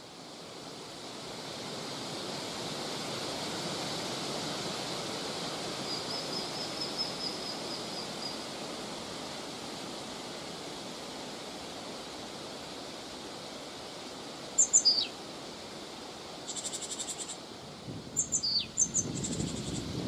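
Steady wind noise, fading in at first, with songbird calls over it: a short high trill about six seconds in, then sharp high chirps with quick falling notes twice later on, the loudest sounds, and buzzy rapid high calls near the end.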